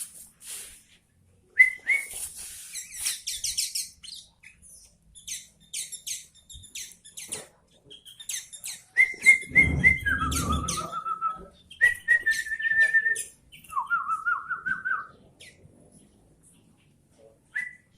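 Caged kutilang (sooty-headed bulbul) singing short runs of quick repeated whistled notes, mixed with many sharp chirps and rustling clicks. A low rumbling bump comes about ten seconds in.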